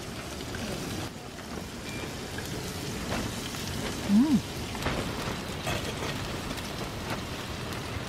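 Meat sizzling on a hot camping griddle, a steady crackling hiss, with a short hummed voice about four seconds in.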